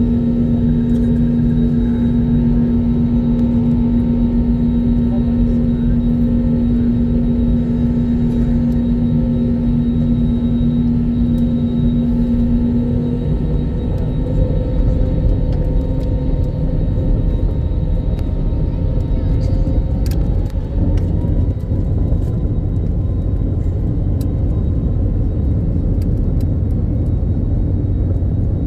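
Jet engine noise heard inside the cabin of an Airbus A321neo: a steady, loud rumble with a humming tone. About two-thirds of the way through, a tone glides upward as the engines change pitch, and light rattling clicks follow.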